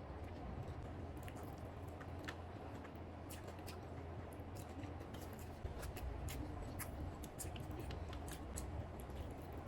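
Close-up eating sounds: irregular wet clicks and smacks of chewing chicken biryani and egg, over a steady low hum.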